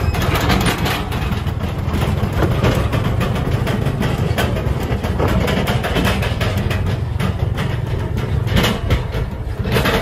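Diesel engine of a homemade công nông sand truck running under load as it drives off along a dirt track, a steady low engine note with rapid pulsing.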